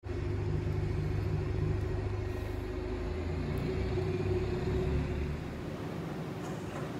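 Steady low mechanical hum and rumble of metro station machinery with a constant tone, quietening somewhat about five seconds in.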